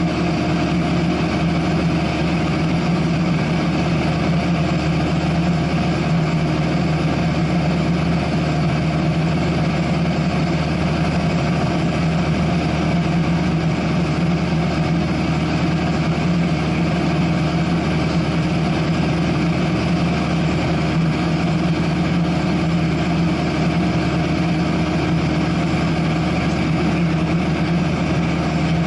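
Cessna 172SP's four-cylinder Lycoming IO-360 engine and propeller running steadily in flight, a constant drone heard from inside the cockpit.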